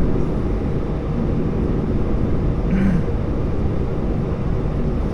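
Airbus A320 cabin noise after landing: a steady low rumble of the engines and airframe as the airliner taxis, heard from inside the cabin.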